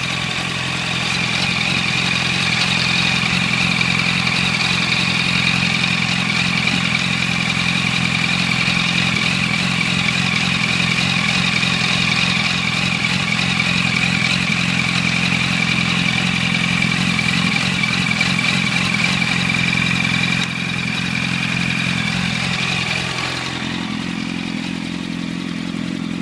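A 2006 Yamaha R1's inline-four idling through an Arata full titanium exhaust. It holds a steady, raised idle, then the revs sag about two-thirds of the way in and settle at a lower idle near the end.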